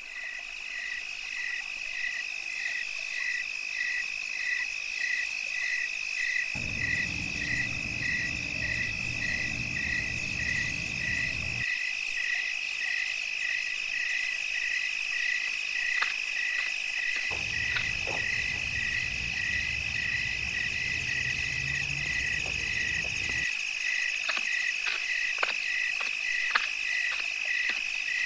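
Night insect chorus: a steady high trill with a regular pulsing chirp about twice a second beneath it. A low rumble comes in twice, each time starting and stopping abruptly, and a few faint clicks sound in the second half.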